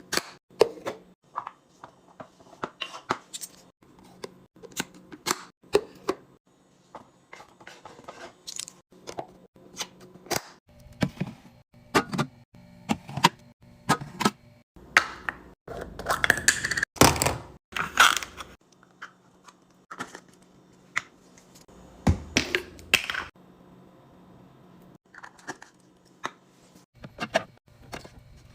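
Food packaging and containers being handled while a fridge is restocked: many sharp clicks and knocks of items set down and lids snapped, with rustling and crinkling of packaging, busiest midway, over a faint steady hum.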